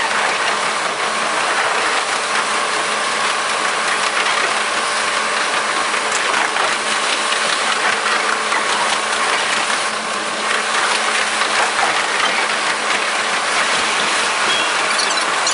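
Running sound of a KiHa 47 diesel railcar, sped up five times, so that the engine and the wheels' clatter blur into a fast, steady mechanical rattle.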